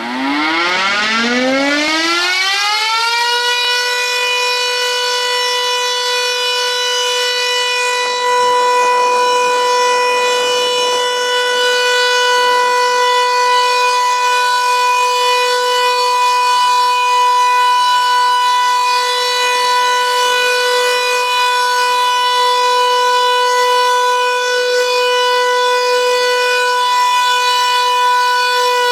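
Klaxon CS8 electric siren winding up, its pitch rising for about three seconds, then holding one steady tone. Both its shutters are jammed, which gives it a horrible muffled noise.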